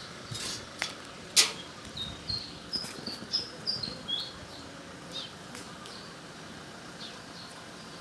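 A small bird chirping a quick run of about ten short, high notes over two seconds, with a few sharp clicks and taps around it, the loudest tap about one and a half seconds in.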